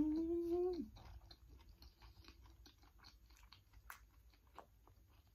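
A woman's closed-mouth 'mmm' of enjoyment, held for about a second at the start, then quiet chewing with small wet mouth clicks and smacks as she eats soft, ripe durian flesh.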